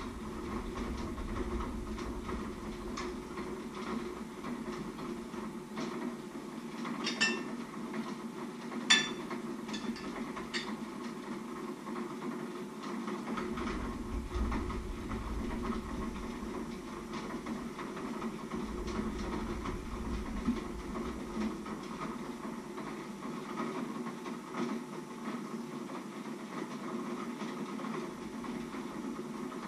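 Steady low kitchen hum, with a few sharp clinks of a spoon and crockery between about seven and eleven seconds in, the loudest near nine seconds, as food is served onto plates.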